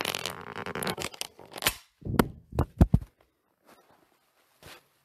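Close handling noise on the recording device: about two seconds of rustling and scraping, then a few sharp knocks, the loudest near the three-second mark, followed by a couple of faint taps.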